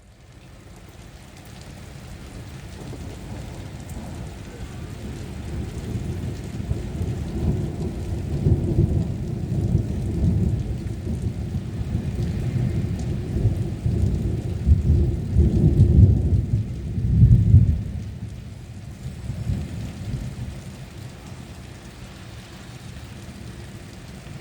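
Thunder rolling over steady rain: a long low rumble that builds, peaks about two-thirds of the way in, then dies away while the rain keeps falling.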